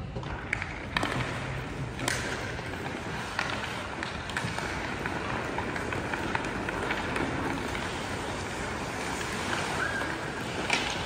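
Ice hockey play: skate blades scraping and carving across the ice, with a few sharp clacks of sticks and puck, the loudest about two seconds in and just before the end.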